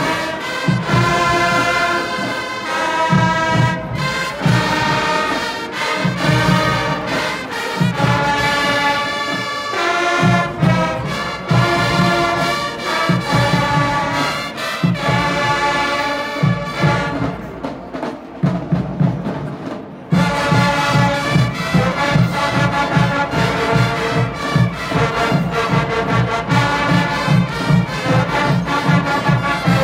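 Student marching band playing: brass chords over a steady drumbeat. Around 17 seconds in the sound thins and softens briefly, then at about 20 seconds the full band comes back in with a faster, even drumbeat.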